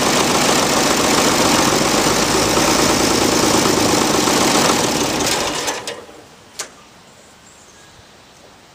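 Diesel tractor engine running steadily, then faltering and dying about five and a half seconds in as it runs out of fuel.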